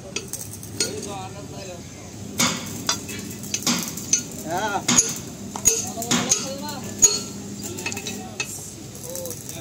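Steel excavator track parts clinking and knocking as a pin and bushing are handled and set into a track link, with a sharper metal knock about seven seconds in.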